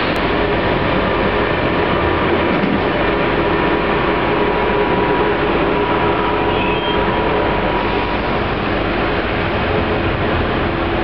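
Siemens ES64U2 Taurus electric locomotive moving away at low speed: a steady noisy rumble of running gear and electrics, with a faint steady whine that fades out about eight seconds in.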